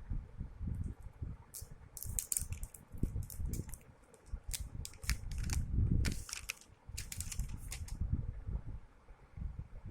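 Irregular crackling and clicking, like something being handled or crinkled, over a low uneven rumble. The crackles cluster from about a second and a half in until near the end.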